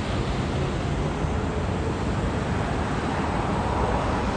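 Steady outdoor rush of wind and water, with road traffic noise that swells about three seconds in.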